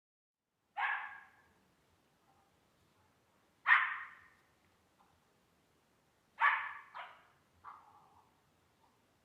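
Belgian Malinois puppy barking: single barks about a second in and about three and a half seconds in, then a quick run of three. Each bark fades out quickly.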